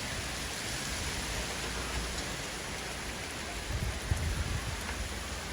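Heavy rain pouring down and splashing on surfaces, a steady hiss, with some low rumbling about four seconds in.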